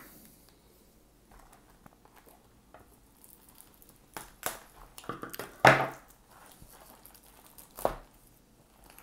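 Plastic shrink-wrap on a cardboard card box being cut with scissors and torn off, the film crinkling. It is quiet for the first few seconds, then comes a handful of sharp snips and rips, the loudest about halfway through.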